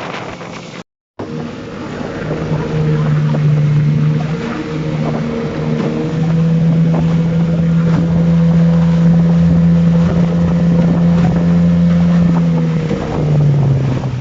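Boat outboard motor running at a steady speed under way, with wind and water rushing past; the engine note drops near the end as it throttles back.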